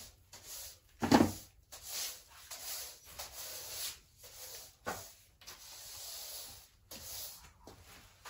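Household handling sounds in a small room: a loud knock about a second in, a sharper click just before five seconds, and soft shuffling and rustling between them.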